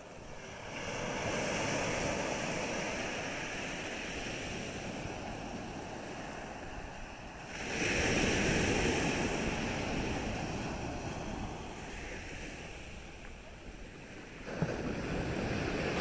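Sea waves breaking and washing up on the shore, swelling and ebbing; the largest wave comes about halfway through.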